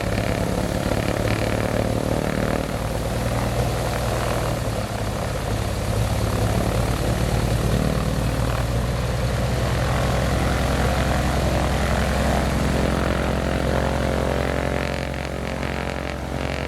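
1962 Cessna 310's piston engine running steadily with its propeller turning, on its first run after sitting for about four years. It drops a little in level about fifteen seconds in.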